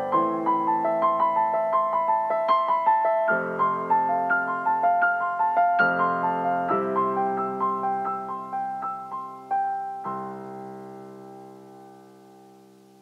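Background piano music: a flowing line of single notes over held chords, ending on a final chord about ten seconds in that rings and fades away.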